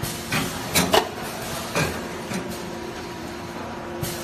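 Rotary plastic-cup sealing machine running: a few sharp mechanical clacks and knocks from its working cycle, the loudest about a second in, over a steady machine hum.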